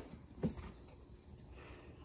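A light knock about half a second in from a cardboard oat-milk carton being handled and turned in the hand, then quiet kitchen room tone.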